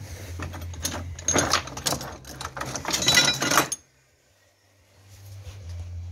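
Metal hand tools clinking and rattling as they are rummaged through in search of a wrench, over a low hum. The clatter stops abruptly about four seconds in.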